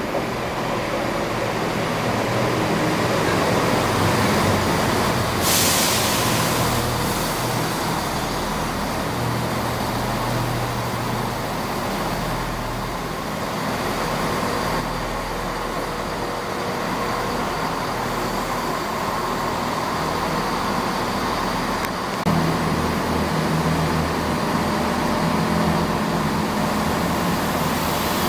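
A Chiltern Railways diesel multiple unit running into the platform, its underfloor diesel engine drumming steadily under the rumble of the wheels on the rails. There is a brief hiss about five seconds in, and the engine note changes and grows louder about 22 seconds in.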